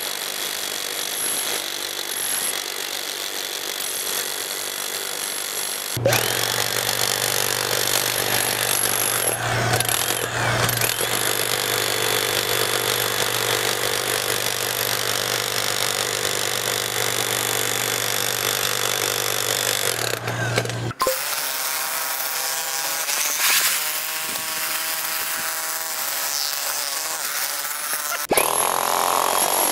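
Electric demolition hammers (Hilti TE500X, Makita HM0810T and Xcort XZG02-45) hammering chisel bits into concrete in a steady, continuous clatter. The sound jumps abruptly about 6, 21 and 28 seconds in.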